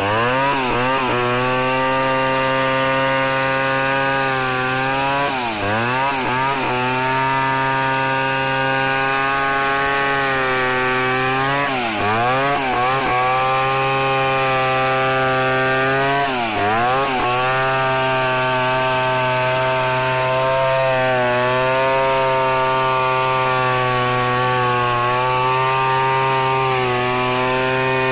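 Stihl 070 two-stroke chainsaw running hard while ripping lengthwise along an acacia mangium log, the chain cutting steadily through the wood. A few times the engine pitch dips sharply and swings back up in quick wobbles before settling into its steady note again.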